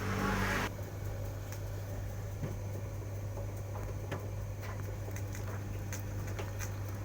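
A steady low electrical hum with scattered light clicks and knocks, after a brief rush of hissing, splashing noise in the first moment.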